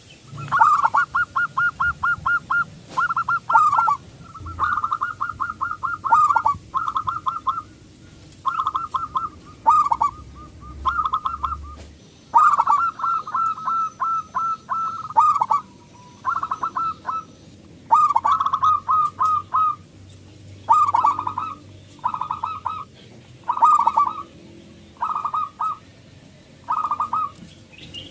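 Zebra dove (perkutut) singing phrase after phrase of its rapid, stuttering coo, each phrase about a second long with short pauses between.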